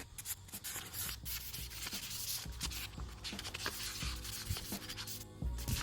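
Hand sanding a fog light cover with 400-grit sandpaper: quick, repeated back-and-forth scrubbing strokes scuffing the surface for painting. Background music with held notes comes in about halfway through.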